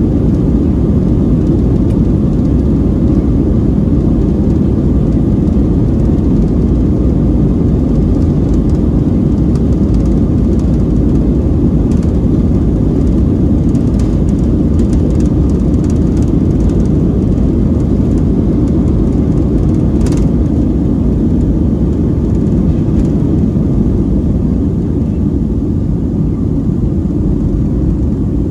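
Cabin noise of a Boeing 737-400 on its takeoff roll: the CFM56-3 engines at takeoff thrust with the rumble of the wheels on the runway and a few light knocks in the middle. The noise eases slightly near the end as the aircraft lifts off.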